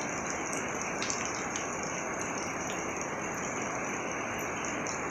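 Heavy rain falling steadily on a wet paved courtyard, an even dense hiss with faint drip ticks here and there.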